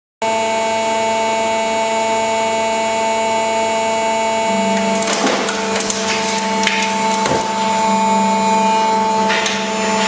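Pull-test rig running with a steady whining hum, and from about five seconds in irregular cracks and creaks as the seat belt anchorages, straps and seat frames take the pulling load.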